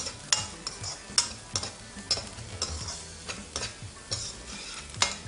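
Chopped onions sizzling in hot oil in a kadhai while a metal ladle stirs them, scraping and knocking against the pan about twice a second; the onions are being fried towards golden brown.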